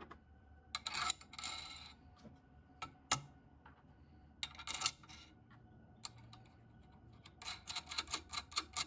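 Small steel parts of a bolt test fixture being handled and set in place: clinks and rattles with a sharp click about three seconds in. Near the end comes a quick run of light clicks, about six a second, as a hex nut is spun down a threaded bolt.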